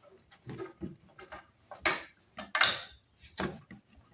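Plastic clicks and knocks as a washing machine's dirt filter is turned and pulled out, a string of short sharp strokes with the two loudest about two and two and a half seconds in.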